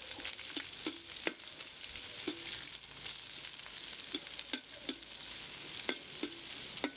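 Sliced onions frying in oil in an iron kadai, sizzling with a steady hiss, while a metal spatula stirs them and clicks and scrapes against the pan at irregular intervals, some strokes ringing briefly.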